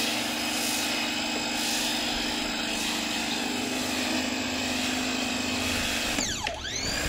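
Electric pressure washer running steadily, driving the foam cannon. Near the end its motor pitch drops and comes back up.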